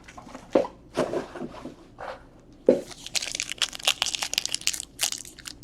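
Foil trading-card pack wrapper crinkling and tearing as cards are handled: irregular crackles and clicks, thickening about halfway through.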